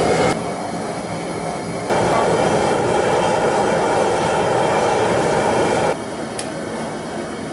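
Propane turkey-fryer burner running under a large aluminum stockpot: a steady rushing gas-flame noise. It is louder in the middle, then drops suddenly, with a light clink of the pot lid soon after.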